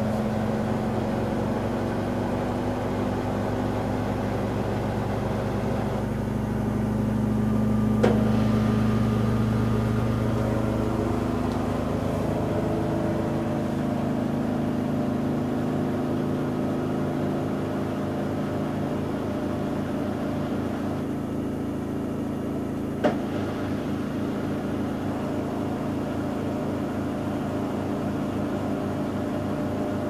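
Panasonic NA-168VG2 inverter front-loading washing machine running, its motor and drum giving a steady hum with a fast pulsing rhythm, struggling to get its final spin going. The hum swells about eight seconds in, and there are two sharp clicks, one about eight seconds in and one about 23 seconds in.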